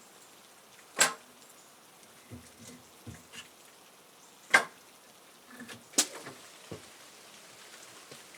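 Three sharp clicks, about a second, four and a half and six seconds in, among a few softer knocks and taps of objects being handled.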